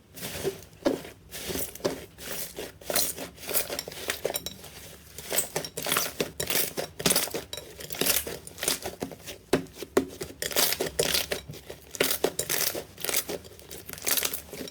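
Slime being squeezed and poked by hand, giving a quick, irregular run of crackling clicks and pops.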